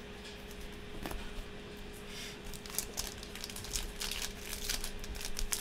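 A plastic card sleeve rustling, then a foil trading-card pack wrapper crinkling as it is peeled open, with scattered sharp crackles that grow more frequent in the second half.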